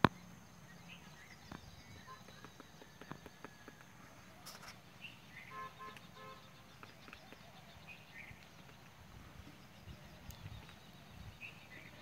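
Faint, irregular taps of a woodpecker pecking into a mango tree trunk, with short bird chirps around it and one sharp knock right at the start.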